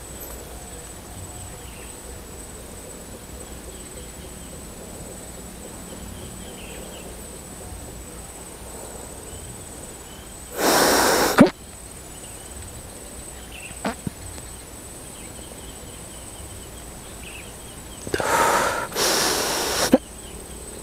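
Three loud hissing bursts of air, one about ten seconds in and two close together near the end, over a steady outdoor background with a faint high whine. A short sharp click comes about fourteen seconds in.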